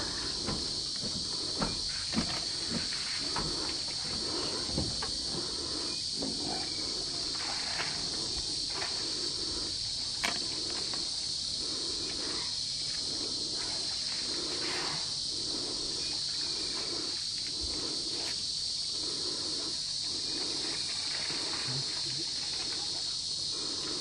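Steady high-pitched drone of insects in the bush, with a few short knocks in the first half.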